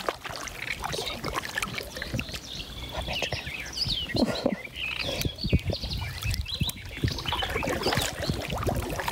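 Kayak paddle blades dipping and splashing in calm river water, with dripping between strokes. Birds call from the surrounding reeds, most clearly a few seconds in.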